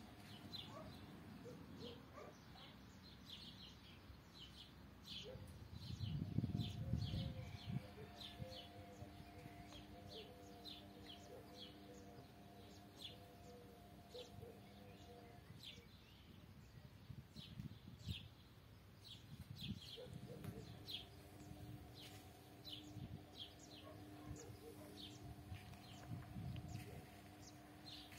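Small birds chirping faintly, short high chirps repeating every second or so, over a faint steady hum of low tones. A brief low rumble about six seconds in.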